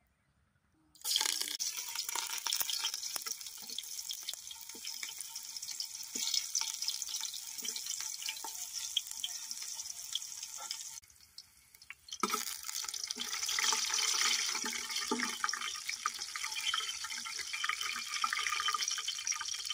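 Sliced onions sizzling in hot oil in a metal cooking pot: a dense, steady hiss full of small crackling pops. It starts about a second in and breaks off for about a second just past the middle.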